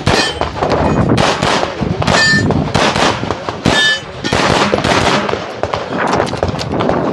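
9mm CZ Shadow 2 pistol fired in fast strings of shots, with short breaks between strings. Two brief high ringing tones sound about two and four seconds in.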